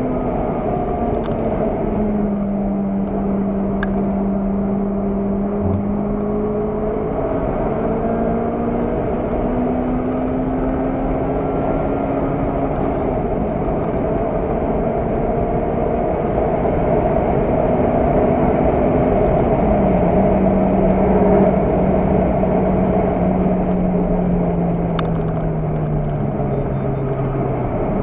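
Car engine heard from inside the cabin while driving at speed on a track, under steady road and wind noise. The engine note shifts pitch several times and falls slowly over the last several seconds.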